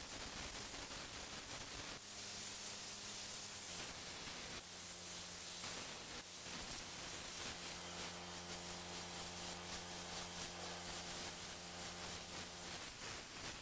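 21 L/min pressure washer's lance jet spraying onto sandstone paving and edging: a steady hiss, with the machine's low hum underneath.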